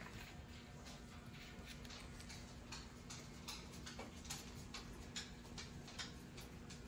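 Faint, irregular small clicks, a couple to a few a second, over a low steady hum.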